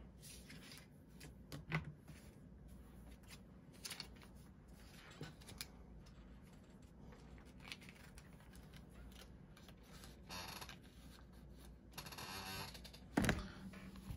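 Paper banknotes being folded and pushed into the pockets of a leather wallet: faint scattered rustles and small clicks, longer paper rustling about ten and twelve seconds in, and a knock about thirteen seconds in as the wallet is handled.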